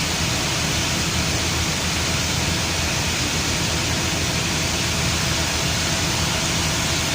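Chevrolet Camaro engine idling steadily under a constant rushing hiss.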